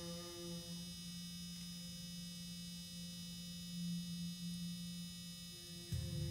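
Steady low electronic drone from a small Arduino-driven speaker lying on a timpano head, the drum resonating with it; fainter higher tones fade out about a second in and come back near the end. Near the end a louder, deeper buzzing tone enters.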